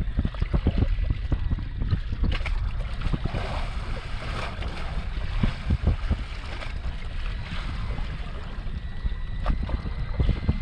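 Wind buffeting the microphone, with water lapping against the boat's hull and irregular low thumps.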